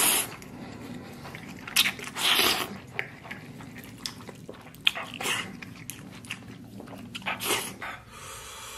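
A man slurping instant fire noodles and chewing, with a few loud slurps (about two seconds in, and again near the end) and small wet chewing clicks between them.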